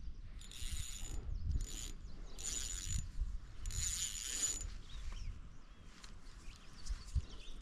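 Ultralight spinning reel whirring in four short bursts in the first half, then falling quiet, while a big fish hooked on 3-pound-test line pulls against the bent rod.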